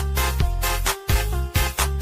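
Dance music with a deep, steady bass line and a regular drum beat.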